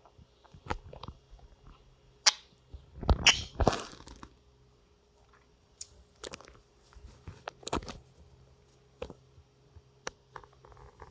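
Pet birds pecking and moving about: irregular sharp taps and small crunches, with a louder brief flurry about three seconds in.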